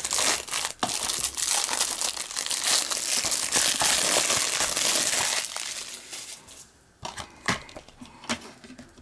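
Cellophane shrink wrap on a plastic DVD case crinkling and crackling as it is torn and pulled off for several seconds. Near the end come a few sharp clicks of the plastic case being handled and opened.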